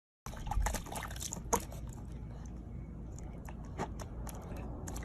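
Water splashing and trickling, with scattered sharp drips and clicks over a steady low rumble.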